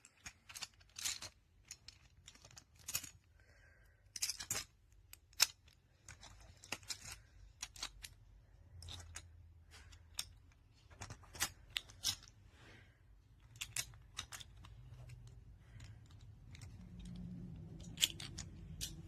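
Small plastic magnetic tiles clicking and clacking as they are handled and snapped together, in irregular sharp clicks with short gaps between them.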